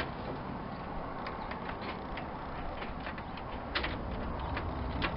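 Scattered light clicks and small metallic knocks of hand work on a winch bolted to a steel front bumper, as its screws are being tightened down; the sharpest click comes a little under four seconds in.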